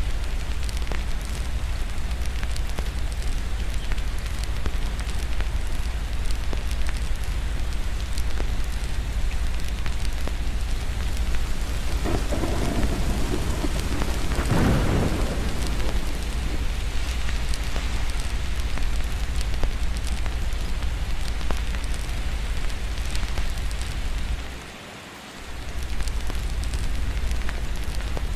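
Steady rain with a constant low rumble of distant thunder. About halfway through a roll of thunder swells and fades over a few seconds. Near the end the sound drops away for about a second, then comes back.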